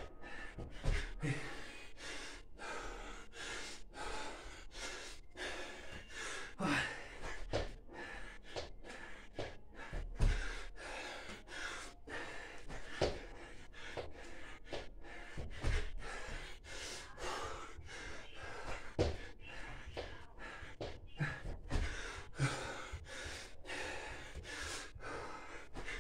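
A man breathing hard in rapid, rhythmic gasps, about two breaths a second, from the exertion of a long set of burpees. Dull thumps come every few seconds as his body lands on the floor mat.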